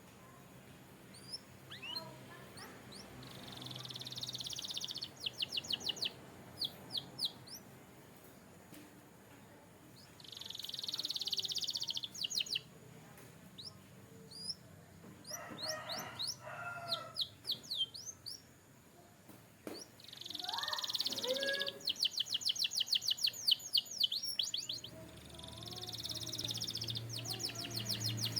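Canary singing: phrases that go from a dense, buzzy roll into a run of rapid, downswept notes, repeated several times, with a few lower warbled notes in between.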